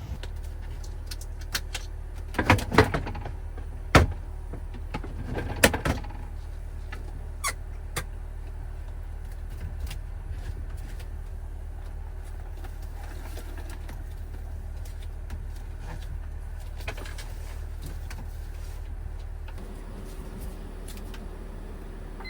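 A few sharp knocks and clatters, bunched in the first six seconds, over a steady low hum.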